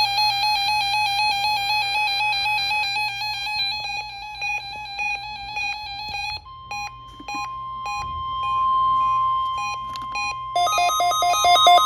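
Electronic beeping tones in a fast repeating melody, hopping quickly between pitches. Around the middle it thins to scattered short beeps over a steady held tone. Near the end a louder, fast alternating two-tone pattern starts.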